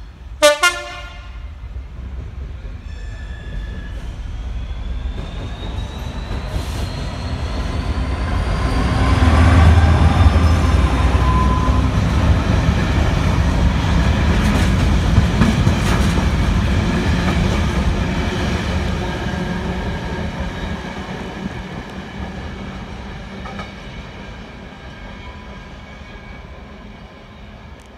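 Class 66 diesel locomotive sounding its two-tone horn in a short blast about half a second in. Its two-stroke V12 diesel engine then grows louder as it approaches and passes. The engineering train's hopper wagons follow, rumbling and clicking over the rail joints, and the sound fades away toward the end.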